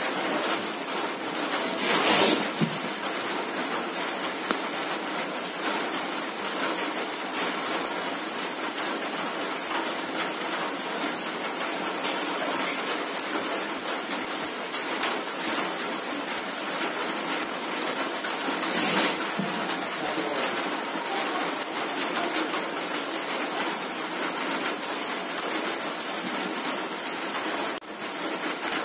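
Open wood fire crackling and hissing under whole fish roasting in a wire grill basket, a steady noisy sizzle with brief louder bursts about two seconds in and again around nineteen seconds.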